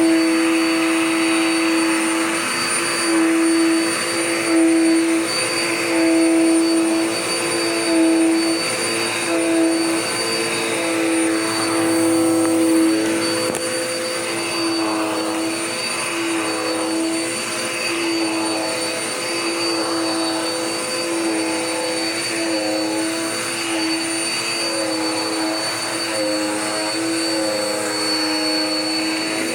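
Dirt Devil Power Max vacuum cleaner running continuously, a steady motor whine over a rushing hiss, its pitch wavering slightly up and down.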